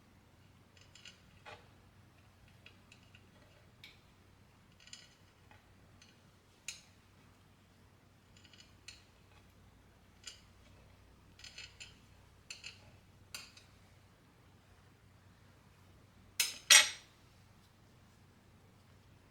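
Light kitchen handling sounds: scattered, irregular clicks and clinks of utensils and dishes, some in quick little clusters, with a louder double clatter near the end.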